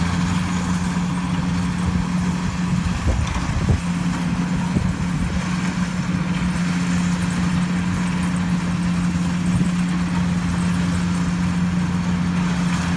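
Kubota DC70G combine harvester running steadily, its engine hum overlaid with the noise of the working machinery. The hum wavers briefly about three to four seconds in.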